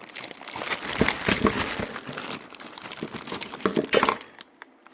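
Packaging crinkling and rustling as heater parts are handled and unwrapped. The rustling is dense and crackly and stops near the end.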